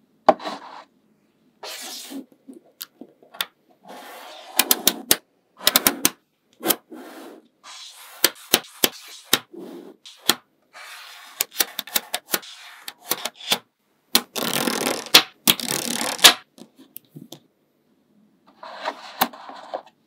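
Small magnetic balls clicking sharply as they snap together, in quick clusters, with bursts of rattling and scraping as groups of balls are slid and pressed into place. A longer, louder scraping burst comes about three quarters of the way through.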